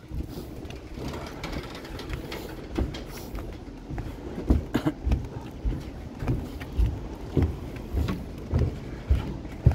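Footsteps walking down a ship's gangway onto the pier, about two steps a second from around halfway in, over a steady hum of street traffic.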